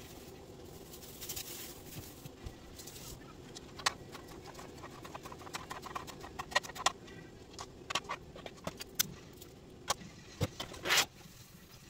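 A plastic produce bag rustles as green onions are taken out, then a knife taps irregularly on a cutting board as the onions are chopped, with a short louder clatter near the end. A steady low hum runs underneath.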